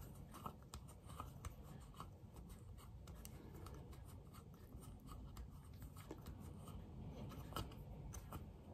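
Faint rubbing and scattered small clicks of fingers working a rubber diaphragm onto a carburettor vacuum piston.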